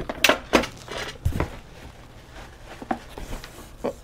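Handling noise from unpacking: a series of separate knocks and clicks as a plastic griddle scraper is set down and items are pulled from a cardboard box, with rustling of the box flaps; the loudest knock is about a second and a half in.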